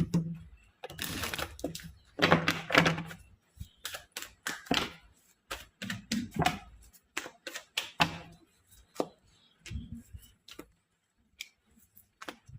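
A tarot deck being shuffled and dealt by hand: a run of quick papery clicks and slaps as the cards are handled and laid down.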